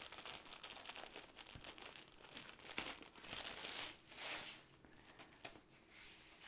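Thin white wrapping crinkling and rustling as it is pulled off a rolled diamond painting canvas. The crackling is busiest in the middle and dies down near the end.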